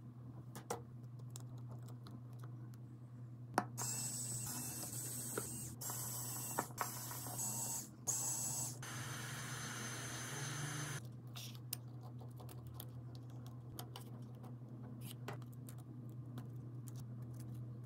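Small clicks and taps of repair tools on a phone, with a loud hiss that comes in several bursts from about four seconds in and stops about eleven seconds in.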